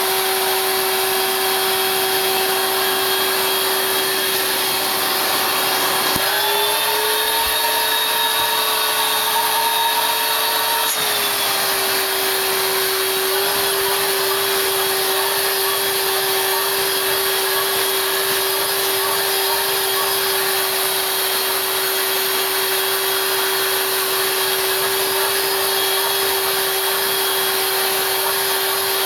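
Vacuum cleaner running steadily with a motor whine and airflow hiss. Its pitch steps up about six seconds in, holds for about five seconds, then drops back to the earlier note.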